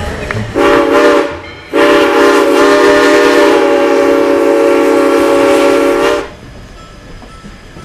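Steam locomotive's whistle: a short blast, then a long blast of about four and a half seconds that cuts off, sounded as the train approaches a railroad crossing. Afterwards only the quieter running noise of the train.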